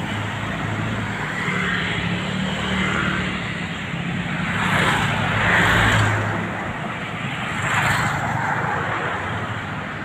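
Street traffic passing close by: cars, motorcycles and a small van driving past. The engine and tyre noise swells loudest about five to six seconds in and again near eight seconds, over a steady low engine hum.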